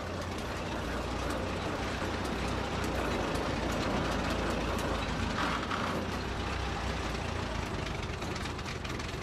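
Petrol engine of an armoured railway locomotive running steadily, a low rumble with faint ticking.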